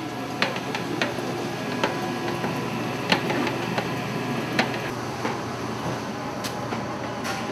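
Commercial kitchen ambience: a steady machine hum with scattered clinks and knocks of metal pans and utensils.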